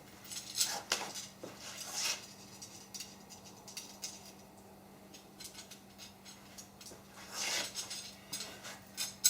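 Loose steel bolts and hardware clinking and scraping against an aluminum extrusion as they are slid into its slots, in short irregular bursts with the loudest around two seconds in and again near the end.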